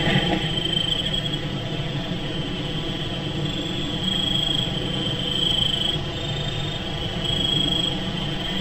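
Evening insect chorus: a continuous high-pitched trill that swells and fades in stretches, over a steady low hum.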